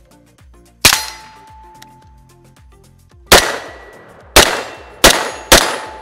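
Five single shots from an IWI Galil ACE pistol in 7.62x39. One comes about a second in, then four in quicker succession in the second half, roughly half a second to a second apart. Each sharp crack trails off in a short echo.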